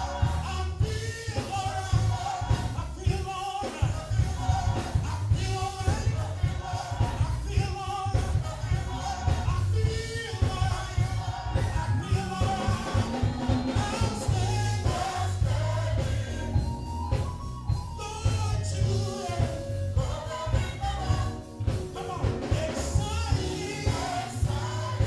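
Live gospel praise music: singers in a church praise team sing over a band's steady bass and beat.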